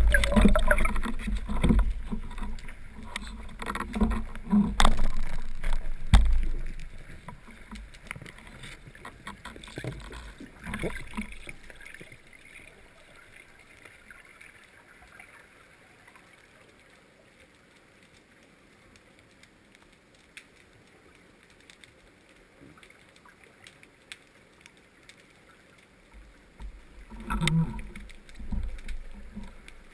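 Underwater sound picked up by a diver's camera: low rushing of water with scattered knocks from the diver's movement, fading to quiet after about ten seconds and picking up again near the end.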